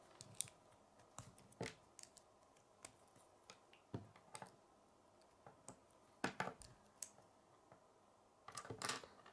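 Plastic K'nex rods being pushed and snapped into a connector hub: scattered faint clicks and small taps, bunched about six seconds in and again near the end.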